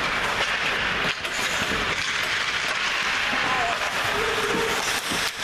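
Ice hockey play on a rink: a steady hiss of skates scraping on the ice, with clicks of sticks and puck, and a short shout about four seconds in.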